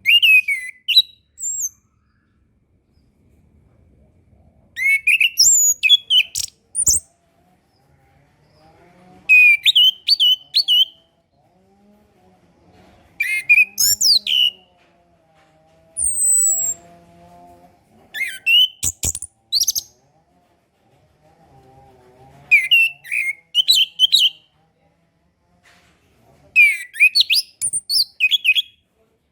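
Orange-headed thrush singing: short, varied phrases of quick whistled notes sweeping up and down, about eight phrases a few seconds apart with pauses between.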